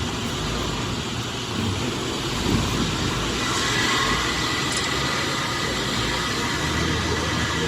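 Heavy machinery running steadily, a low rumble with a faint high whine that comes in about three and a half seconds in.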